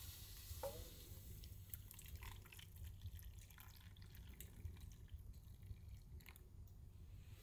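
Water drops falling into a steel bowl of water: one clear drip about half a second in and a few fainter ones later, over a low steady hum.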